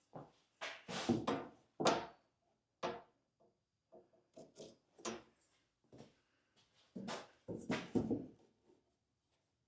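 Workshop handling sounds: a series of short scrapes and knocks as tools and materials are moved and worked by hand, bunched around one to two seconds in and again near the end.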